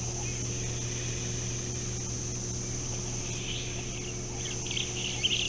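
Outdoor ambience of a steady, high insect drone over a low steady hum, with a bird calling in a run of short, bright notes from about three seconds in that grows louder near the end.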